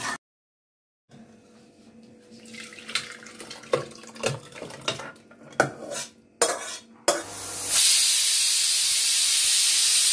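A metal spatula scraping and knocking against a steel kadai as thick mutton curry is scraped into a pressure cooker: a run of separate clinks and scrapes. Then a loud, steady hiss of steam venting from the pressure cooker for the last two seconds or so.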